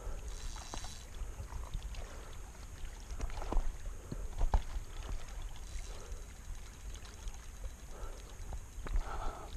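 Wind rumbling on the microphone, with scattered light clicks and a few sharper ticks from rod-and-reel handling and footing on the gravel shore while a hooked fish is played on a light spinning outfit.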